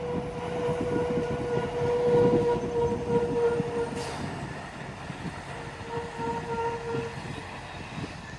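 A semi truck's air horn blown twice: a long single-note blast of about four seconds, then a shorter one of just over a second. Under it runs the rumble of the truck's engine and tyres passing, loudest about two seconds in.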